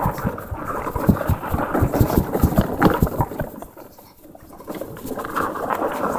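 Wind buffeting the microphone, with low thumps and crunches from footsteps on snow-covered lake ice. The sound eases off for a moment about four seconds in, then picks up again.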